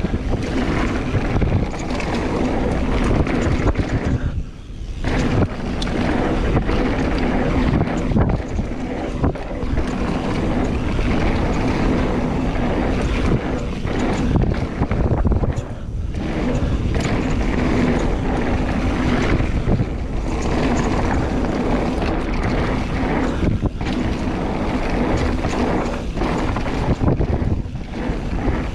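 Wind rushing over an action camera's microphone and mountain bike tyres rolling on a dirt trail as the bike is ridden fast, with frequent knocks from the bike over bumps. The noise dips briefly twice, about four seconds in and again around sixteen seconds.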